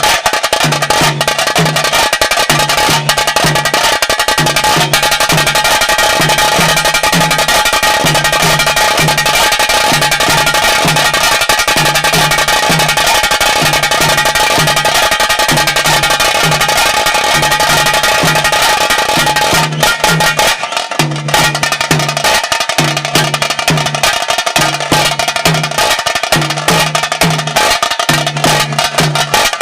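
Taase drums of a pili nalike (tiger dance) troupe beaten with sticks in a fast, dense rhythm, over a deeper drum beat about once a second. The playing thins briefly about twenty seconds in, then picks up again.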